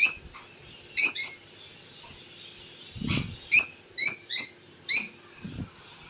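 Rosy-faced lovebirds in breeding cages giving sharp, high chirps, repeated every second or so, with a quick run of three about four seconds in. Two soft low bumps are heard as well.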